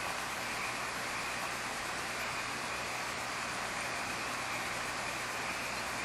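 Steady, even hiss with a faint low hum underneath, unchanging throughout; no distinct calls, clicks or knocks.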